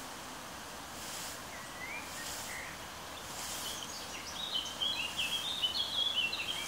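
A small songbird sings a quick run of bright chirps through the second half, the loudest sound here. Before that come soft swishes about once a second from a hand rake drawn through dry cut hay, over a steady outdoor hiss.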